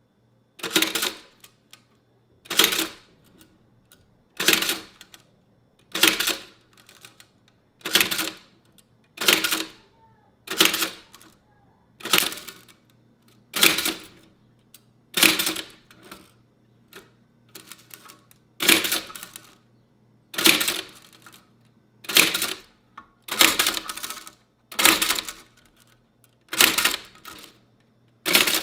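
Japanese typewriter striking one character at a time: a heavy clack roughly every one and a half to two seconds, each dying away briefly.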